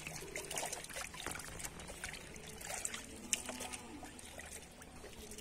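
Light water splashing and trickling, with scattered small splashes, as fish are scooped by hand from a net lying in shallow pond water.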